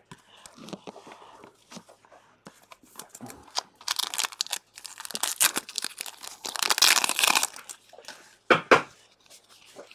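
Foil trading-card booster pack being torn open and crinkled, with a long spell of loud crackling from about four seconds in and two sharp crinkles near the end.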